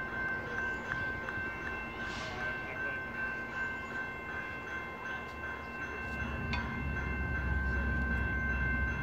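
Railway level-crossing warning bell ringing steadily beside the tracks, with a low rumble growing louder from about six seconds in.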